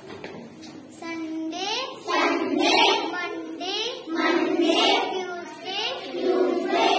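A young girl singing the days of the week in a sing-song chant, phrase after phrase, starting about a second in.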